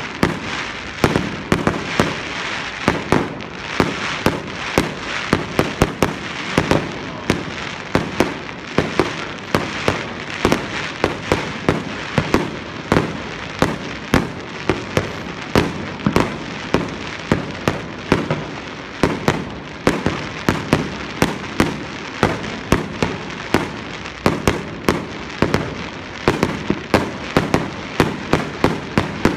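Aerial fireworks bursting in a steady barrage: sharp bangs, two or three a second, over a constant noisy hiss between them.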